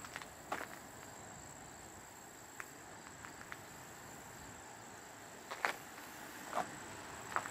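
Faint outdoor ambience: a steady high-pitched whine with a few soft scattered scuffs and clicks, several coming about a second apart near the end.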